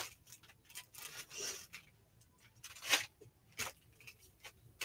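Plastic packaging rustling and crinkling in short, irregular bursts, loudest about three seconds in, as new items are unwrapped.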